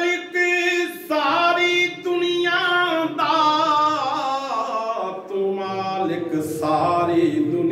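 A man singing Punjabi devotional verse alone, with no instruments, drawing out long held notes that waver and slide in pitch.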